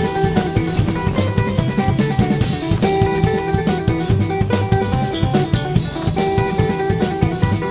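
Music with a drum kit and guitar playing a steady beat.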